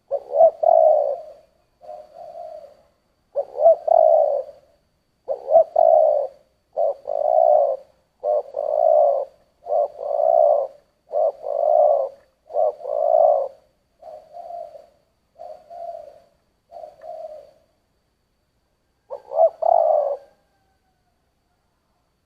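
Spotted dove cooing in a deep 'thổ' voice: a run of about a dozen short coo phrases, roughly one every second and a half, the last few quieter. After a pause near the end comes one more louder phrase.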